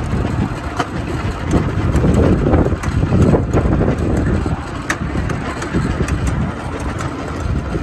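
Miniature railway locomotive running as the train rolls slowly along the track, a steady low engine sound with a few sharp clicks scattered through.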